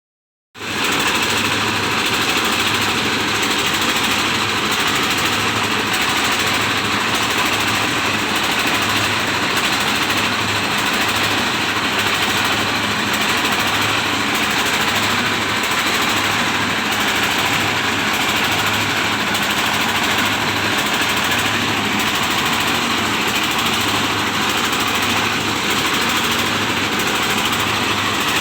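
Rice milling machine running, driven by an old 24 hp Dongfeng single-cylinder diesel engine: a loud, steady mechanical clatter and hum with a pulsing low beat, cutting in abruptly about half a second in.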